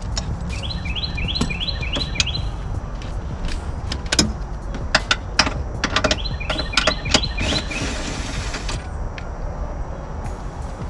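Scattered metallic clicks and knocks of hand tools as the steering column's mounting bolts are taken out. A bird sings two runs of quick rising chirps, about three a second, over a low steady rumble.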